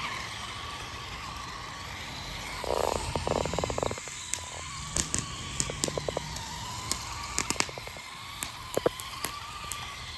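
Consumer firework crackling: a dense run of rapid crackles about three seconds in, then scattered sharp pops and snaps.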